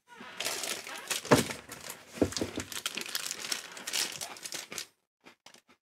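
Shiny plastic sweet packet crinkling as it is handled and turned over in the hands; the crinkling stops about five seconds in, leaving a few faint clicks.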